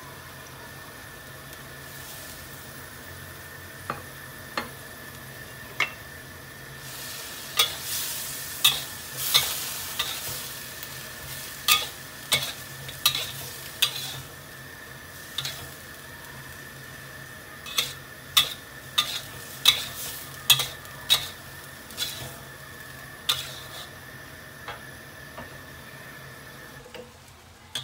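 Metal spatula stirring and tossing marrow, minced pork and glass noodles in a wok over a sizzle, with sharp clanks of the spatula on the wok, one or two a second, in two spells. The sizzle grows louder during the first spell.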